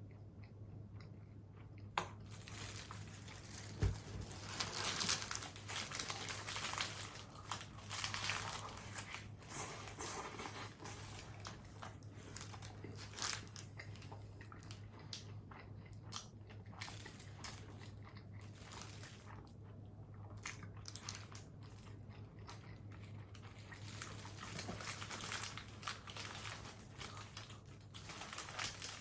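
A person biting and chewing crunchy fast food close to the microphone, in irregular crunches with a few sharp clicks near the start, over a steady low hum.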